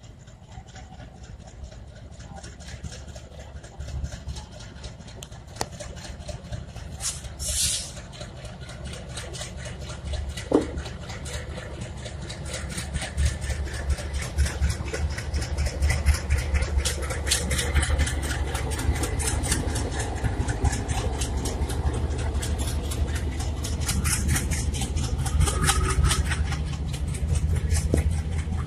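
ALCO-design WDM-3A diesel-electric locomotive approaching and passing, its deep engine rumble growing steadily louder, with a rapid clatter of wheels on the rails as the train goes by.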